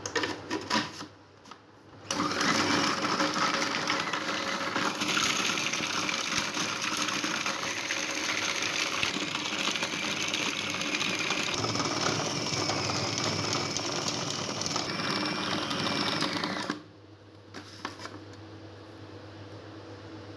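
Small electric motor of a kitchen appliance running steadily for about fifteen seconds, starting about two seconds in after a few clicks. Its whine shifts in pitch partway through, and it cuts off suddenly near the end.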